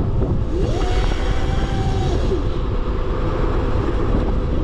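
Electric pit bike riding, its 6,000-watt hub-drive motor whining: the whine rises in pitch about half a second in, holds, and falls away a little after two seconds, over heavy wind buffeting on the microphone.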